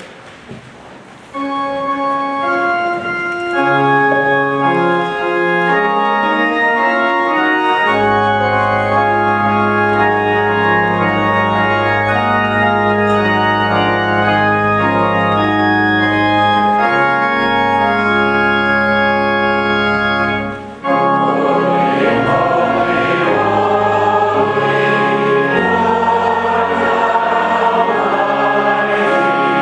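Church organ playing sustained hymn chords, with deep pedal bass notes coming in about 8 seconds in. After a brief break a little past the two-thirds mark, many voices join in singing the hymn with the organ.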